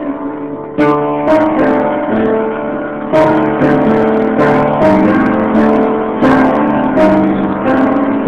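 Instrumental music: guitar chords strummed every second or so, each ringing on under the next, without singing.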